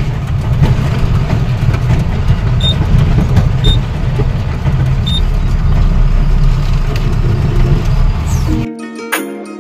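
Unladen truck's diesel engine running under way, heard from inside the cab as a heavy steady rumble, with three short high beeps in the first half. About nine seconds in it cuts off suddenly to background music.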